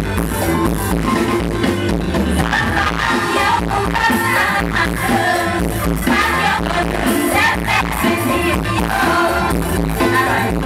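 Live mor lam band playing amplified through a stage sound system with a steady, driving beat, and a woman's voice singing over it from a few seconds in.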